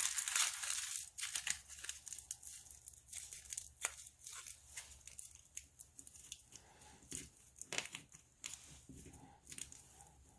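Tin foil being crinkled and squished by hand, with irregular crackles, loudest at the very start.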